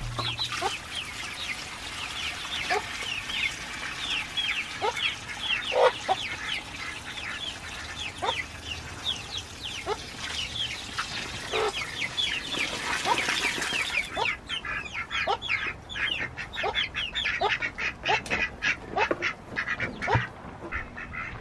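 Water pouring from a plastic jug into a rubber pan, cutting off about two-thirds of the way through, while a flock of young chickens peeps constantly with short, falling chirps and some lower calls.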